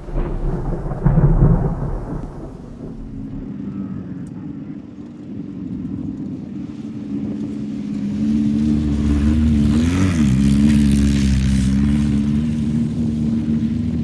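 A Class 1600 off-road race car's air-cooled VW 1600 cc engine running steadily, with a loud low rumble in the first two seconds. It grows louder about eight seconds in, and its pitch dips and comes back up once near ten seconds in.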